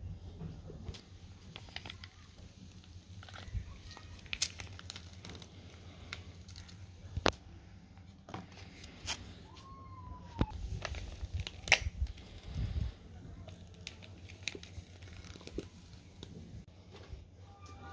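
Foil wet-food pouch crinkling and rustling in the hand, with scattered sharp clicks and taps as its plastic spout cap is twisted off and the food is squeezed out.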